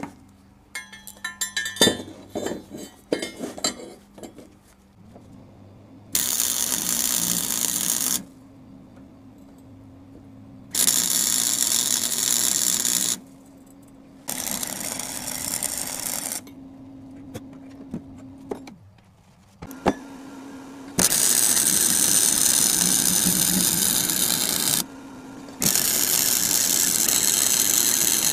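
Steel rebar and flat bar pieces clanking as they are set in place, then arc welding on them with a Forney Easy Weld welder: five crackling, hissing welds of about two to four seconds each, switching on and off abruptly.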